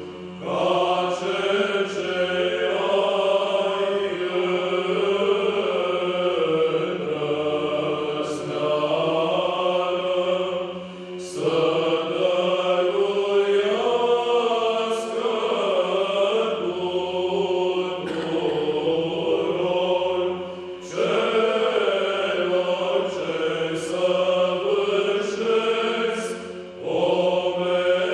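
Male choir singing Orthodox Byzantine chant, a melodic line over a steady held low drone. The singing pauses briefly between phrases about 11 and 21 seconds in and again near the end.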